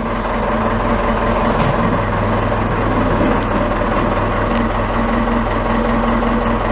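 Backhoe engine idling steadily just after a cold start, left to warm up.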